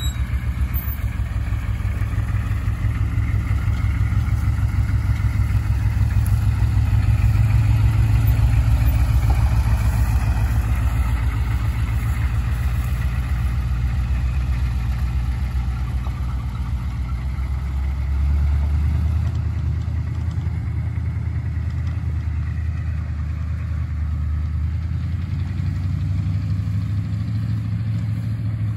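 The 6.2-litre V8 diesel engine of a 1990 Chevrolet K1500 pickup running: a steady low rumble of fast, even firing pulses. It grows louder over the first several seconds, then eases off, with a shift in pitch about two-thirds of the way through.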